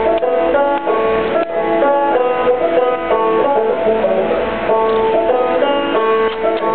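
Old-time string band music with a banjo picking a steady, unbroken tune.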